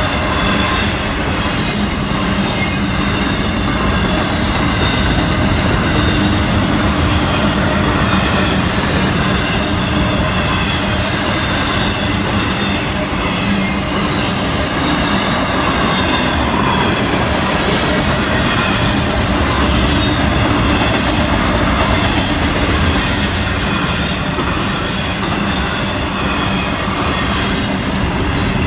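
Florida East Coast Railway intermodal freight cars rolling steadily past: a continuous, loud rumble of steel wheels on the rails.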